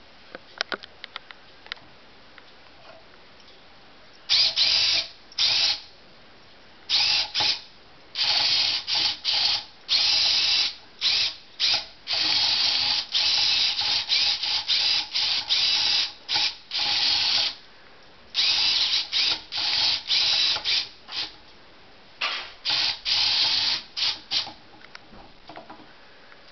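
Small electric LEGO motor whirring in repeated short bursts as it drives the elevator's rack and pinion, switched on and off many times, with a few light clicks near the start.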